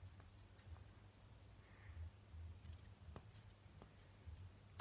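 Near silence: room tone with a steady low hum and a few faint, short clicks from small objects being handled.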